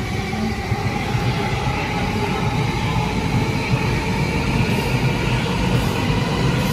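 JR East E231-series electric commuter train pulling out of the platform, its motors and wheels running as it starts to move and slowly gathers speed. The rumble grows slightly louder as the train speeds up.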